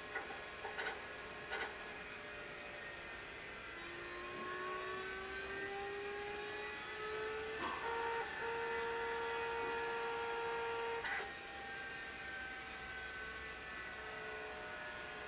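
Commodore 900's hard disk drive clicking three times, then whining in a tone that rises in pitch for about four seconds, holds steady, and after a click drops lower and wavers: the drive acting up.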